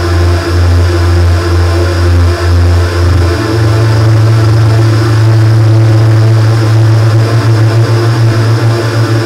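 Live electronic music from synthesizers: a loud sustained bass drone with steady higher tones above it, the bass stepping up in pitch about three seconds in and pulsing rapidly near the end.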